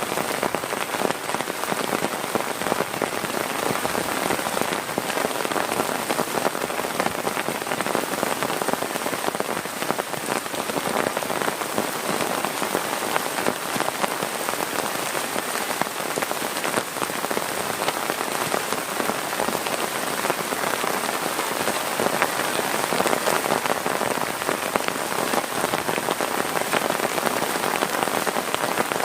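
Heavy rain falling steadily, a dense, even patter of drops striking a surface.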